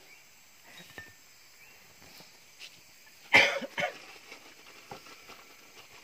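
A person coughing, two quick harsh bursts a little over three seconds in, against faint outdoor background with a few small taps.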